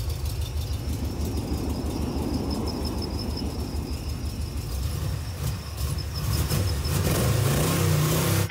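Low vehicle rumble with road noise and a faint high pulsing tone, growing louder over the last two seconds.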